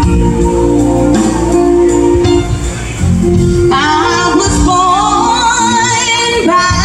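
Music: instrumental accompaniment of held notes, with a singer's voice coming in about halfway through, singing with a strong vibrato.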